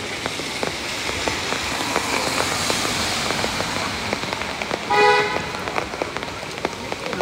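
Steady rain, with many small ticks of drops landing close by, and one short toot of a vehicle horn about five seconds in.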